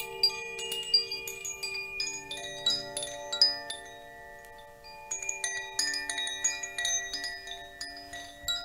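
Chimes struck in quick, irregular runs, their bright tones ringing on and overlapping over lower sustained tones, with a lull about four seconds in before the runs pick up again.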